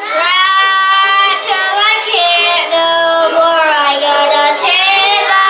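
Young boys singing a song together into microphones, in long held notes that glide between pitches.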